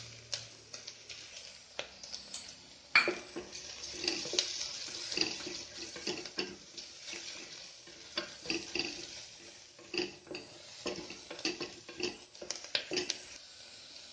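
Wooden spatula stirring onions frying in oil in an aluminium pressure cooker, knocking and scraping against the pot at irregular moments over a steady sizzle. One sharper knock comes about three seconds in.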